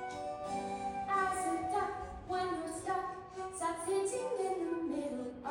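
A young girl singing a musical-theatre solo over instrumental accompaniment, her voice coming in about a second in after a few held accompaniment notes.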